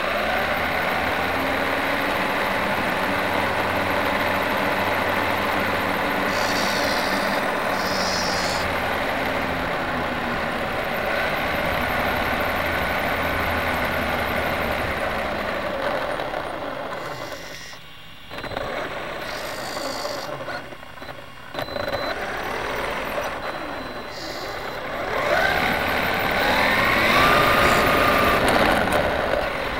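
Steady motor-vehicle running noise that dips twice about two-thirds of the way through, with rising and falling whines near the end.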